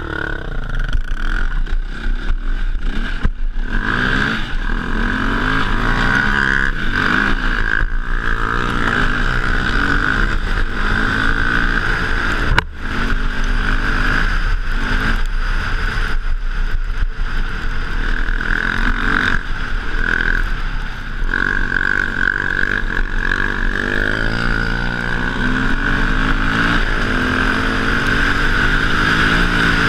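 KTM dirt bike engine on the move, revs rising and falling again and again as the rider works the throttle and gears, with a brief cut in the sound about midway.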